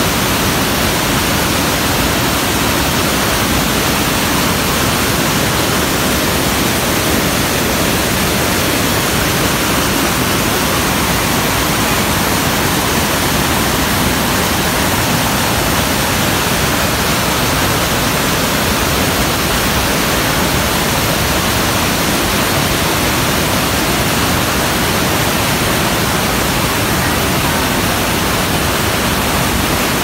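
The Rhine Falls, a large waterfall, heard up close: water crashing into churning whitewater makes a loud, steady rush that never changes.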